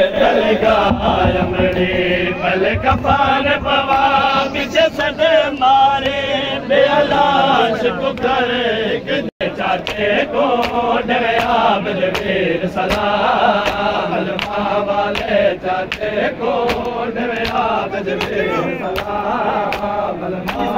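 Crowd of male mourners chanting a lament together, many voices rising and falling, with sharp slaps of chest-beating (matam) scattered through it, more often in the second half. The sound drops out for an instant about nine seconds in.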